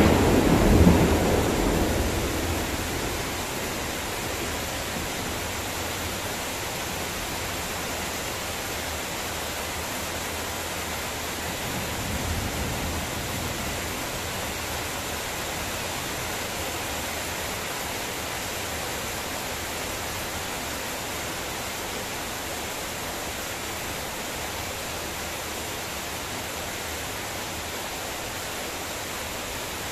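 Heavy rain falling steadily on trees and palm fronds, a constant hiss. A low rumble of thunder at the start fades over a few seconds, and a fainter rumble comes about twelve seconds in.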